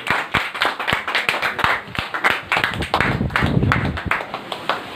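A small crowd clapping: many quick, uneven hand claps that thin out in the second half, with a brief low rumble about three and a half seconds in.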